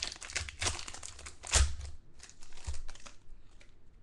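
Foil wrapper of a trading-card pack being torn open and crinkled by hand, with a loud crackle about one and a half seconds in. The crinkling dies down after about two seconds, leaving a few faint clicks.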